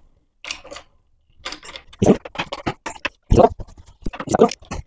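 Irregular light clicks, taps and knocks of a screwdriver and metal fasteners being handled on a homemade table saw's plywood top while it is fastened back in place.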